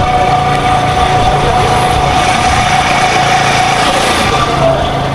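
Motor vehicle engine running with road noise, heard while driving, with a steady high hum that dips slightly near the end.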